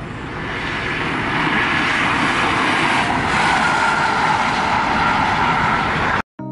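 Expressway traffic noise: a car going past at speed, its tyre and engine noise swelling as it approaches and then holding. The sound cuts off suddenly near the end.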